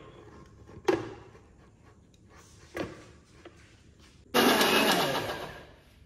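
Two knocks as the steel jar and its lid are fitted onto a Lifelong mixer grinder, then about four seconds in the grinder's motor runs in one short burst, chopping corn kernels, and winds down with falling pitch.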